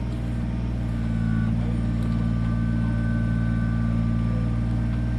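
Kubota BX23S compact tractor's three-cylinder diesel engine running steadily; about a second in it gets a little louder and a thin high whine joins.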